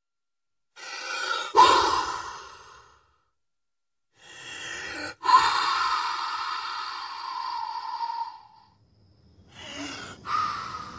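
A person breathing heavily: two long, loud breaths, each starting with a sharp catch, the second drawn out for about four seconds, then a shorter breath near the end.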